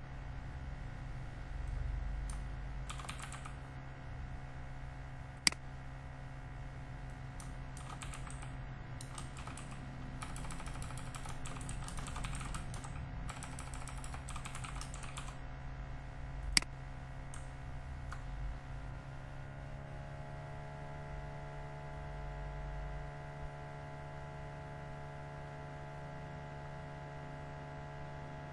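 Typing on a computer keyboard in bursts of rapid key clicks, with a few louder single clicks in between. A steady hum runs underneath.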